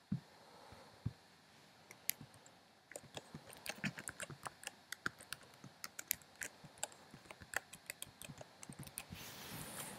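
Typing on a computer keyboard: a few scattered clicks at first, then a quick, steady run of keystrokes for about six seconds, ending in a brief rush of noise.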